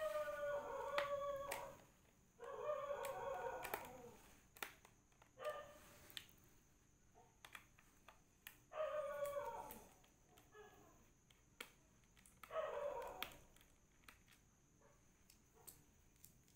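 A pet animal whining in about five drawn-out calls, each a second or two long and falling in pitch, with small sharp clicks in the gaps.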